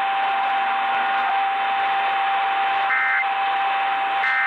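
Radio reception thick with static, with a steady whistle tone running through it and two short electronic beeps, about three and four seconds in.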